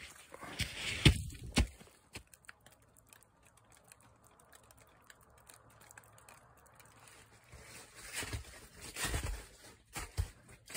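Footsteps crunching on snow and dry fallen leaves: a few steps in the first two seconds and more toward the end, with a near-silent stretch between.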